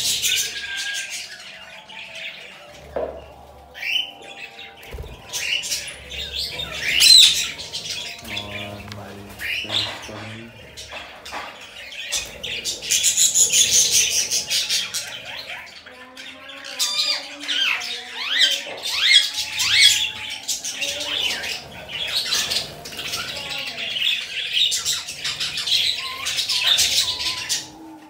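Small pet parrots (budgerigars, cockatiels and Indian ringneck parakeets) chattering with many overlapping high chirps and squawks. There is a loud burst of calls about seven seconds in and a dense stretch of chatter a little after the middle.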